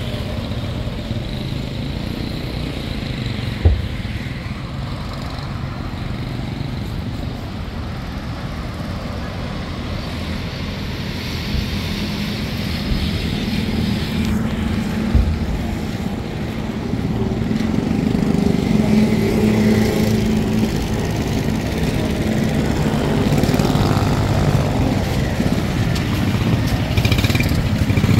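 Busy city-street traffic: cars and motorcycles running past, getting louder in the second half, with two short knocks about four and fifteen seconds in.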